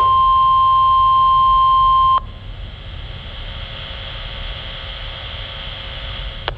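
NOAA Weather Radio warning alarm tone, a single steady 1050 Hz beep, heard through a weather radio. It cuts off sharply about two seconds in, leaving a quieter steady hiss from the radio.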